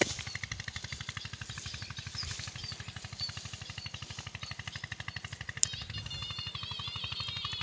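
A small engine running steadily, pulsing rapidly and evenly, with faint chirps over it; a warbling, pitched sound comes in about six seconds in.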